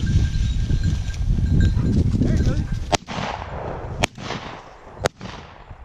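Three shotgun shots about a second apart, each sharp crack followed by a fading echo, fired at a flushed quail. Before the shots, a loud low rumble for about three seconds.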